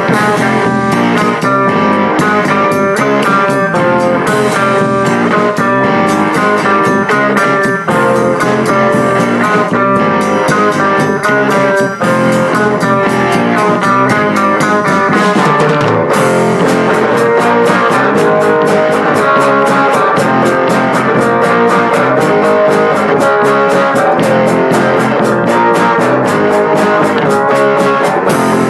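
Background music: a guitar-led blues-rock instrumental with a steady beat that gets busier about halfway through.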